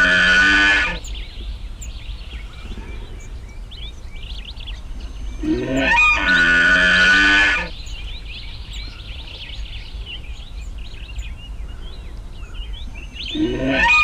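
A loud pitched animal call, about two seconds long with a rising start, repeating identically about every seven and a half seconds: once ending near the start, once in the middle, once starting near the end. Between the calls, faint steady bird chirping.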